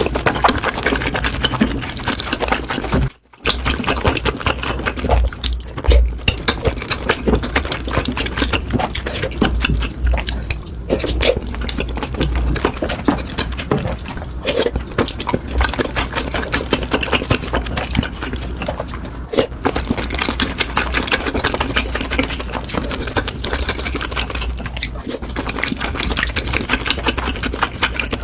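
Close-miked eating: continuous rapid, wet chewing and mouth sounds, with one brief drop to silence about three seconds in.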